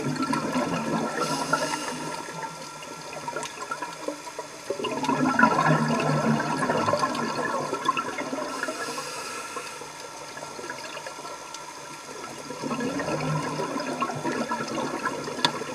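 Scuba diver breathing through a regulator underwater: three rushes of exhaled bubbles, each several seconds apart, with a short high hiss of inhaling between them.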